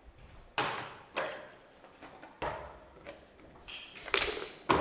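Objects being picked up, moved and set down while tidying a room: a handful of scattered knocks and rustles, the loudest near the end.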